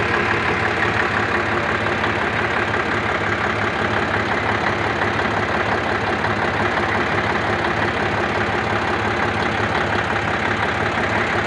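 Road grader's diesel engine running steadily.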